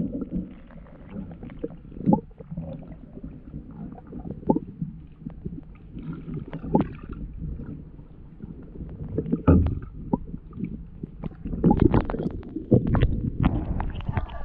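Kayak being paddled: irregular paddle splashes and knocks, several close together near the end, over a steady low rumble of water.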